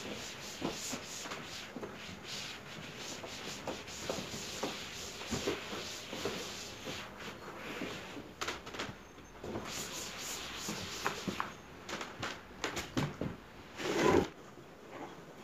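Repeated scrubbing and wiping strokes of a person cleaning a window by hand. Near the end there is a louder knock as the aluminium step ladder is handled.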